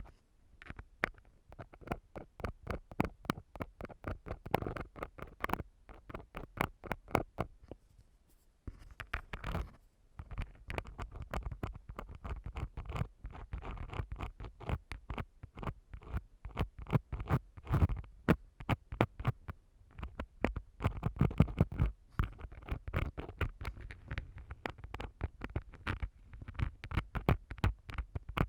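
Close-up scratching and scraping of an ear-cleaning tool in a microphone's ear: dense, rapid, irregular strokes, with a brief pause about eight and a half seconds in.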